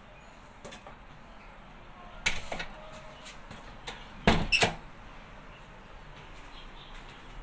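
A sliding glass door being worked by its handle: a sharp clack about two seconds in, then a louder quick run of clicks and knocks a little past four seconds as the latch is released and the door is pulled open.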